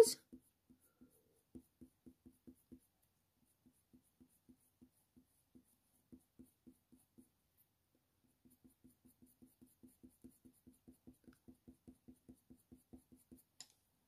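Faber-Castell Polychromos colour pencil rubbing faintly on hot-press watercolour paper in short, quick shading strokes, about five a second. The strokes come in several runs with brief pauses, and the longest run is in the last third.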